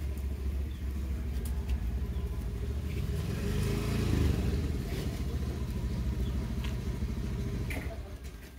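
A terry towel rubbing a wet baby monkey's fur, the rubbing loudest around the middle, over a steady low rumble that fades out near the end.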